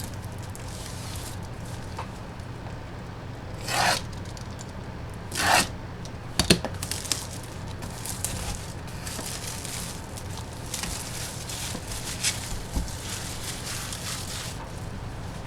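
Packaging of a boxed collectible baseball being opened by hand: two short ripping sounds a few seconds in, then a few sharp clicks and a stretch of rustling and rubbing.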